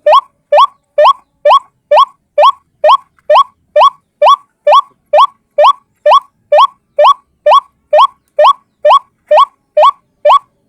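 White-breasted waterhen (ruak-ruak) calling: one short rising note repeated at an even pace, nearly three a second, as a single-bird lure call for trapping.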